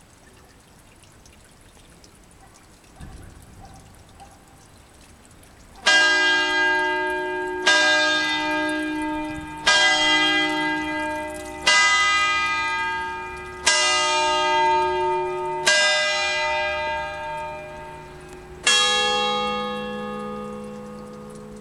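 Church tower bells of the Santuario Beata Vergine della Quercia tolling: after about six seconds of quiet, one bell strikes six times about two seconds apart, each stroke ringing on, then a different, lower bell strikes once near the end and keeps ringing.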